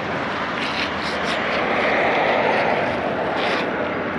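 Steady rushing noise of flowing creek water, with a few light clicks of metal being handled.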